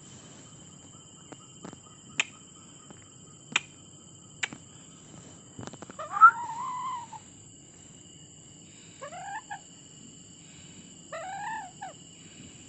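An Alexandrine parakeet gives short, wavering chattering calls, one longer arching call about six seconds in and shorter ones later. A few sharp clicks come earlier.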